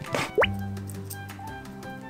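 Light background music with a steady bass line. About half a second in, a quick rising 'bloop' cuts through it.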